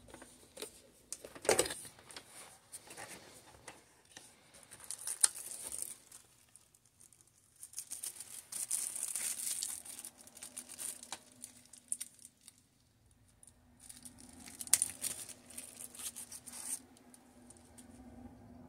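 Clear plastic packaging bag and cardboard box parts crinkling and rustling as they are handled, in several bursts with a longer stretch of crinkling about halfway through and a few sharp knocks.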